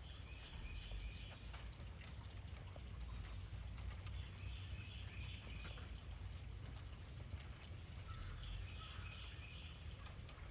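Songbirds outdoors in the rain: a short warbled song phrase three times, about four seconds apart, with small high chirps between, over the steady patter and drips of light rain.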